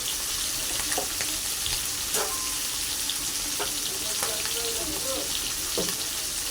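Food frying in hot oil in a pan, a steady sizzle, with a few sharp clicks of a utensil against the pan.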